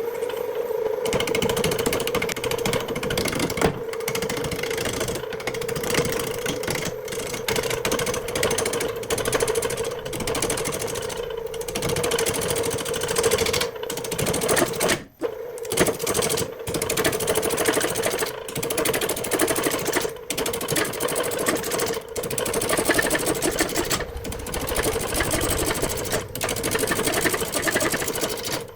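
An electric power-tool motor spinning up and then running with a steady whine, mixed with scratchy, clicking noise from the work. It drops out for a moment about halfway through, then picks up again.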